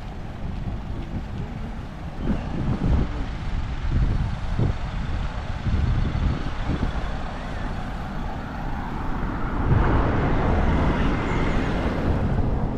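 City road traffic going by: a steady low rumble of engines and tyres, with a louder vehicle passing close from about ten seconds in.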